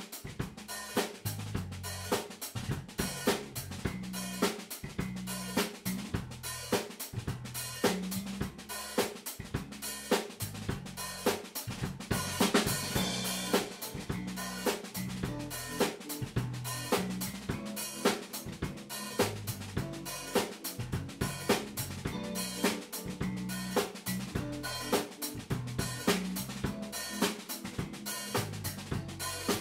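Live rock band playing with a steady beat: drum kit with snare, kick drum and hi-hat, electric bass holding the low notes, and electric guitar.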